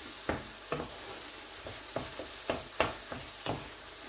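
Menemen of tomatoes, peppers and eggs sizzling in a stone-coated frying pan while a wooden spatula stirs it. The spatula scrapes and taps against the pan in short strokes, about two or three a second, over a steady sizzle.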